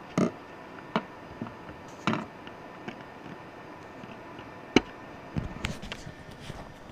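Handling noise from a 1:18 CMC die-cast metal model of a Ferrari 250 GT SWB: small clicks and taps as the opening trunk lid is pressed shut and the model is picked up and moved. There is one sharper knock a little before five seconds in, and a few softer knocks near the end.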